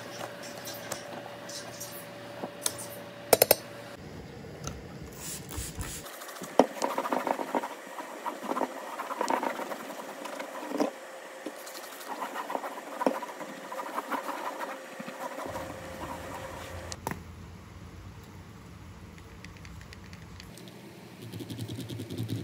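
Cleaning and handling sounds in short stretches: wet cloths rubbed and squeezed in soapy water, and a rag wiping a tiled worktop, with scattered clicks and a few sharp knocks.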